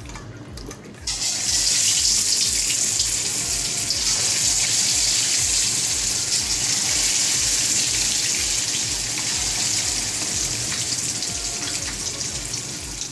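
Marinated, flour-coated chicken pieces deep-frying in hot oil in a kadai: a loud sizzle that starts suddenly about a second in, as the pieces go into the oil, and carries on steadily, easing slightly toward the end.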